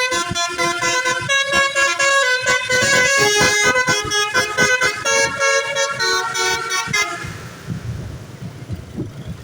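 Putra Bintang Timur bus's basuri telolet horn playing a loud tune of changing notes, which cuts off about seven seconds in, leaving a low rumble.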